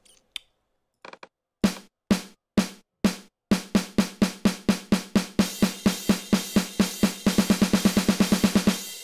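A programmed snare-drum build playing back from an Ableton Live drum rack. Single snare hits come about two a second, then double to about four a second. A crash cymbal comes in halfway, and the snare speeds up to a rapid roll of about eight hits a second, its velocity rising slightly. A mouse click sounds just before the drums start.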